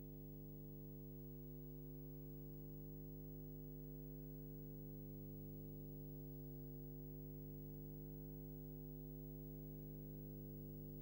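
Faint, steady, low electrical hum that holds one unchanging pitch, with no other sound.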